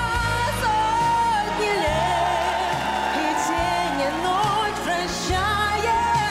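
Pop band backing with a singer holding long notes with vibrato, over a steady bass line.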